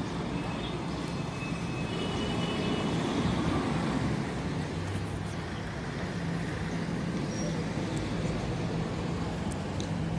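Street traffic noise: motor vehicle engines running close by, with a steady low hum.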